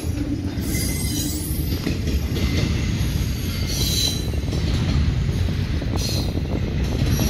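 Norfolk Southern double-stack intermodal freight train rolling past, its wheels and well cars making a steady low rumble on the rails, with a few brief high-pitched wheel squeals.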